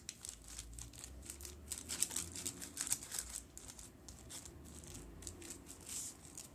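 Wooden spoon pressing and spreading a soaked-bread mixture in a parchment-lined glass baking dish, the paper crinkling. A quick, irregular run of faint scrapes and rustles.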